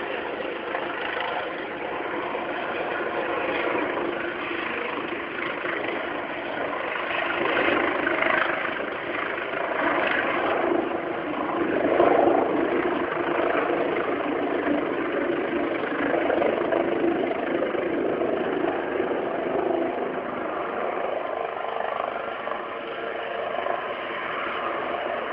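Helicopter flying overhead: a steady engine-and-rotor drone that swells and fades, loudest about twelve seconds in.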